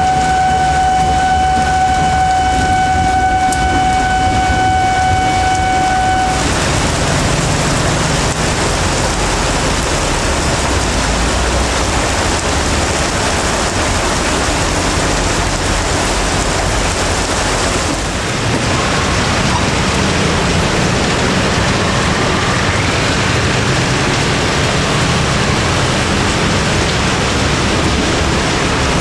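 Heavy rain pouring down with a low rumble underneath, typical of a slow train passing. A steady single-pitched tone sounds for the first six seconds, then cuts off.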